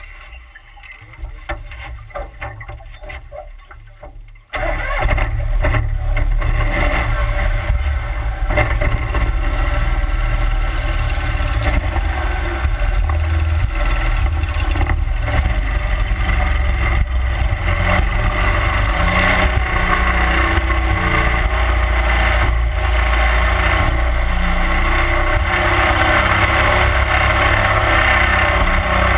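A 31 hp Mud Buddy Hyperdrive surface-drive mud motor comes on abruptly about four and a half seconds in. It then runs steadily at a loud, even drone as it pushes the boat along the water.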